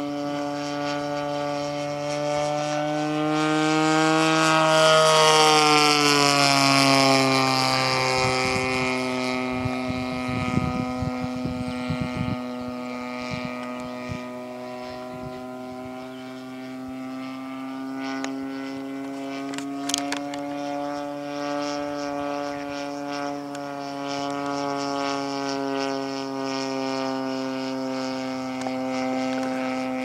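The DLE 35cc single-cylinder two-stroke petrol engine and propeller of a radio-controlled Spitfire model in flight, a steady engine drone. About five seconds in it swells as the plane passes closest, then drops in pitch and fades back to a steady level.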